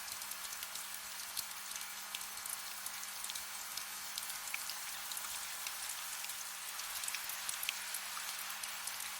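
Soft, steady rain: an even hiss with many small droplet ticks scattered through it. A faint steady low hum runs underneath.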